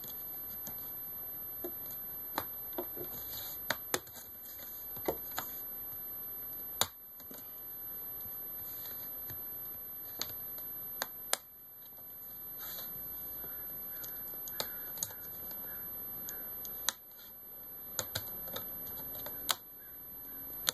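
Plastic screen bezel of a Dell Latitude E6510 laptop being pried off by hand: sharp plastic clicks and snaps, about fifteen, at irregular intervals as the clips are worked loose, over a steady hiss.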